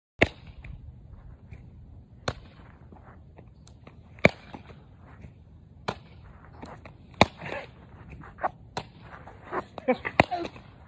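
Softball smacking into a leather fielding glove during a game of catch: a sharp pop about every two seconds, six in all, with faint voices near the end.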